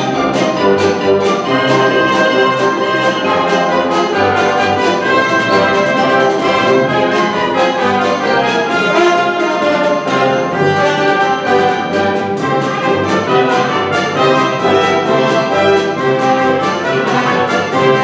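Symphony orchestra playing, with the brass (trumpets and trombones) prominent over strings and a steady rhythmic beat.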